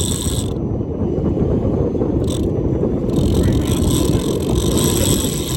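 Strong wind buffeting the microphone, a loud steady rumble. A high, steady whirring sound cuts off about half a second in and starts again about three seconds in.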